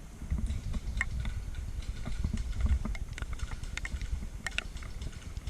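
Footsteps and gear movement picked up by a body-worn camera while walking over wet ground, with an uneven low rumble of movement and wind on the microphone. A few sharp clicks and knocks are scattered through it.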